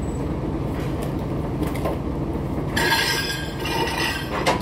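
Dump truck's diesel engine running steadily, joined from about three seconds in by metallic clinks and rattles, with a sharp knock near the end.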